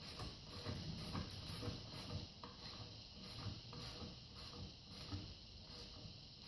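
Ratchet wrench clicking in quick repeated strokes as it tightens the exhaust muffler clamp.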